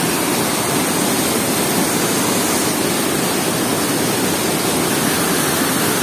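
Steady, loud rush of a waterfall's falling water.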